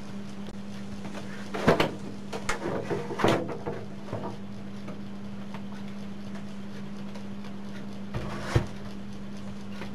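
Plastic rear cabinet of a CRT television being handled and lifted off, giving knocks and scrapes between about one and a half and four seconds in and one sharp knock near the end, over a steady low hum.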